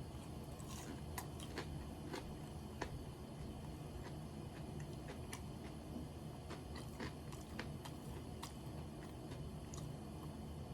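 A person chewing and biting food close to the microphone, with irregular small crisp clicks and mouth smacks over a low steady hum.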